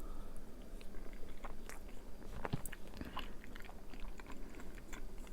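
Chewing a mouthful of soft vegan mac and cheese with soy chorizo: small mouth clicks and smacks, a louder one about two and a half seconds in.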